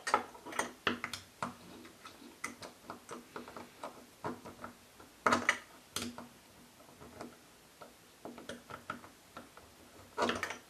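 Irregular metal clicks and taps of a screwdriver against a chrome twist-top bathtub drain stopper as the stopper is fitted and tightened in the drain, with louder clusters of clicks at the start, about five seconds in, and near the end.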